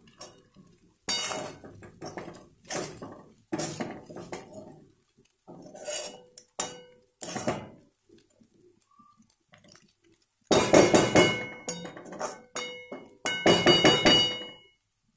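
A steel spatula stirring poha in a metal kadhai, scraping and clinking against the pan. It starts as separate strokes a second or so apart, then two spells of fast clattering with a metallic ring come in the last few seconds.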